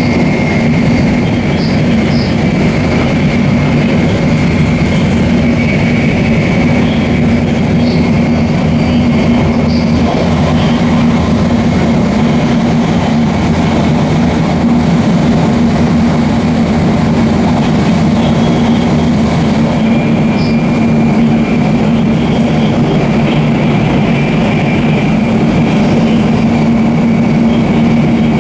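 Shinkansen bullet train running at speed: a steady, unbroken running noise with a strong low hum and a faint constant high whine.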